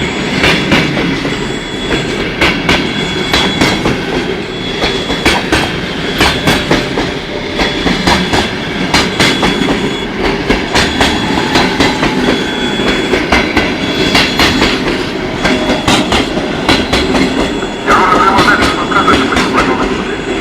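Passenger train rolling past at speed, its wheels clattering over rail joints in a steady clickety-clack over a continuous rumble. A brief louder, higher-pitched sound joins near the end.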